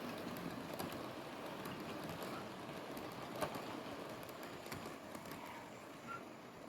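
OO gauge model train running on the track: a steady rumble from the motor and wheels with scattered small clicks, growing gradually fainter toward the end.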